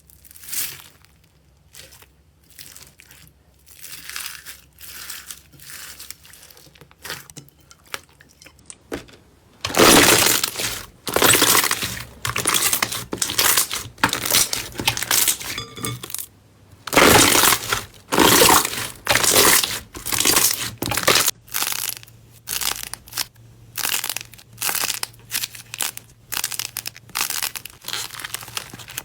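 Slime being handled, making a series of crackling, crunching noises. They are soft and spaced about a second apart at first, then louder and denser from about ten seconds in.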